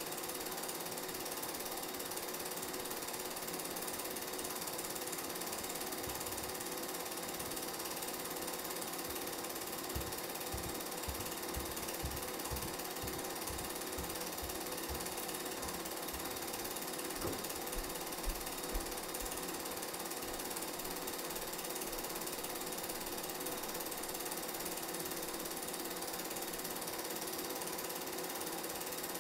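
Steady mechanical clatter of a film projector running through a silent 1967 game reel, with a few low thumps in the middle.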